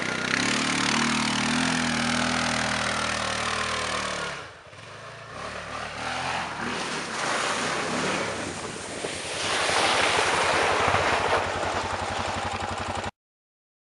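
Honda Rincon ATV's single-cylinder four-stroke engine revving under load as it drives up a steep dirt hill. It eases off about four seconds in, then revs up again, loudest a couple of seconds before it cuts off suddenly near the end.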